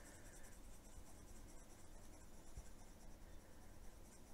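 Faint scratching of a Derwent metallic watercolour pencil drawn across black paper.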